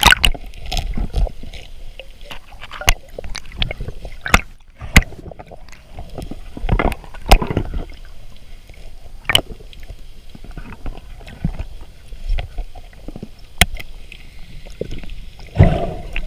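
Muffled underwater sound heard through a camera housing: irregular sharp clicks and knocks as gloved hands and diving gear handle a mesh catch bag, over a steady wash of water, with a longer rush of water near the end.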